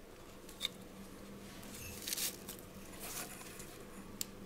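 Faint handling of wires and a plastic connector being pushed into an e-bike motor controller's socket: light rustling, with a small click under a second in.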